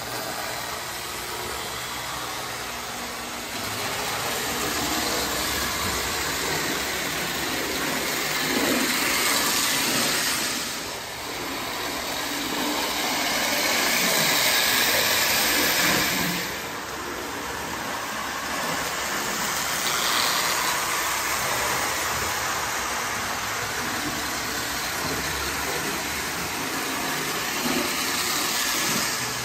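Marx tinplate passenger train running on three-rail track: the locomotive's motor whirring and the steel wheels rumbling along the rails, swelling louder and fading several times as it passes close and moves away.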